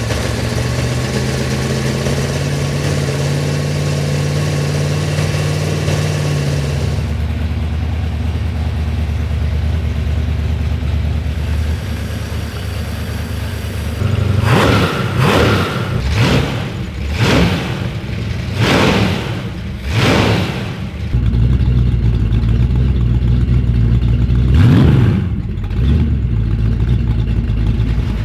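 Rebuilt Pontiac 389 V8 with Tri-Power triple two-barrel carburetors running on an engine test stand; its idle drops to a lower, steadier speed about seven seconds in. About halfway through the throttle linkage is worked by hand, blipping the engine up in about five quick revs, each falling straight back. It then idles again, with one more rev near the end.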